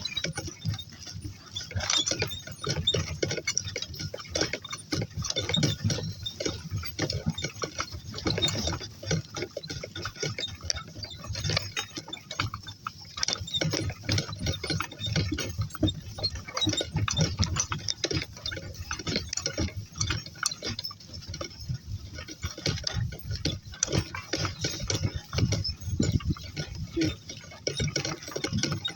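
Footsteps and rustling of people and donkeys walking through grass, with irregular clicking and rattling close to the microphone.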